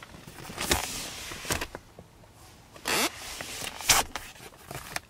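A hand rubbing and pressing on a leather car seatback, making four short rubbing scrapes spread about a second apart.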